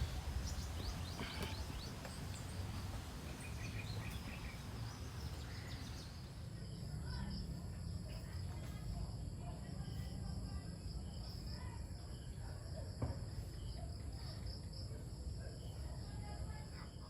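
Insects shrilling in steady high-pitched tones that set in about a third of the way through, over a low steady rumble, with a few faint bird chirps.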